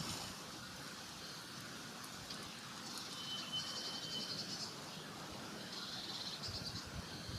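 Faint outdoor ambience with high chirping and rapid trills from small creatures, about three seconds in and again near the end. No zebra call is heard.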